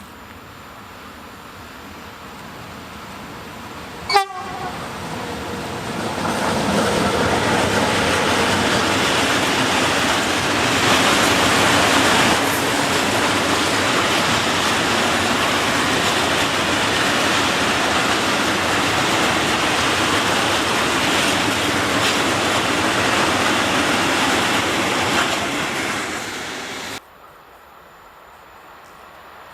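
Bombardier Traxx electric locomotive hauling a freight train of open coal wagons past at speed, the wagons' wheels rolling and clattering over the rail joints. About four seconds in there is one brief sharp sound whose pitch falls; the train noise builds up, holds loud, and cuts off suddenly near the end.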